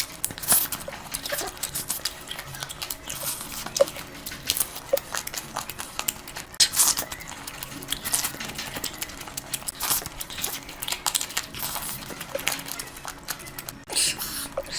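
Close-miked eating: wet chewing and lip-smacking, an irregular string of sharp mouth clicks and squelches from a mouthful of curry.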